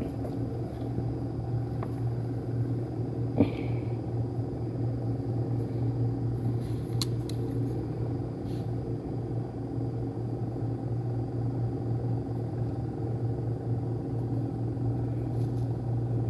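A steady low mechanical hum with several steady tones above it, and a few faint clicks.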